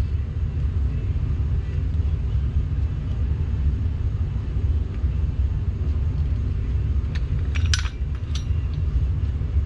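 Steady low background rumble, with a few short metallic clicks from tools and parts at the brake caliper about seven to eight seconds in.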